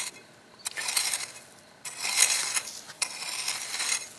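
A small garden hoe's blade scraping and dragging through dry, gritty soil as a furrow is dug, in about three strokes of roughly a second each with short pauses between.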